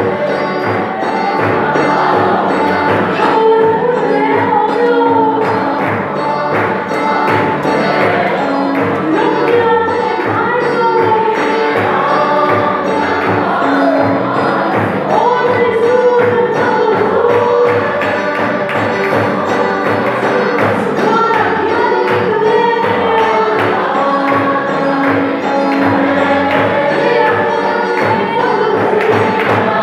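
A group of voices singing a hymn together over a steady drum beat.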